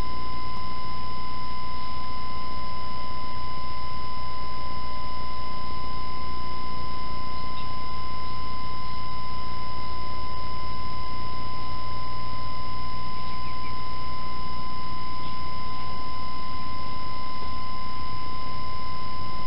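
A steady high-pitched electronic tone with a low electrical hum beneath it, unchanging throughout.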